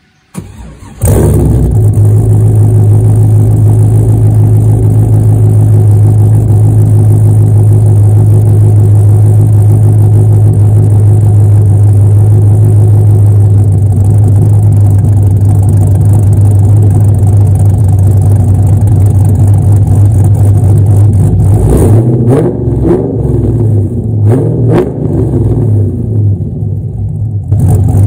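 A Camaro SS's LS1 V8, with a BTR Stage 1 cam, long-tube headers and true dual exhaust, starts sounding about a second in and idles loudly and steadily at the tailpipes. Its pitch swings up and down a few times in the last several seconds.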